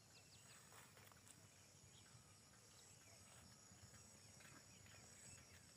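Faint birds chirping in short scattered calls over a faint steady high insect drone; near silence overall.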